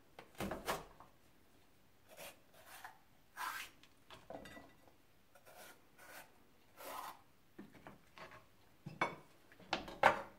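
Chef's knife cutting through a red pepper and scraping out its seeds, in a series of short separate scraping strokes, with a couple of sharper knocks of the blade on a plastic cutting board near the end.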